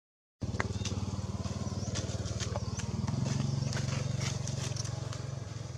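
A small engine running steadily, a low even hum, with scattered sharp crackles of dry leaves over it.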